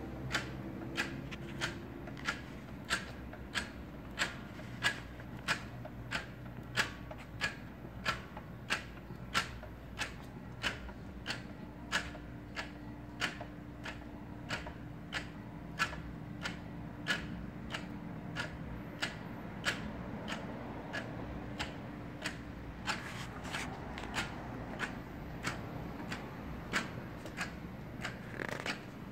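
Vintage Exercycle motorized exercise machine running with nobody on it: its electric motor hums steadily while the pedal and crank mechanism gives a sharp click about every two-thirds of a second.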